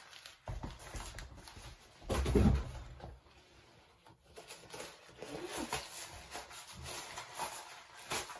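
Paper stuffing rustling as it is pulled out of a sneaker, with handling noise and a dull thump about two seconds in.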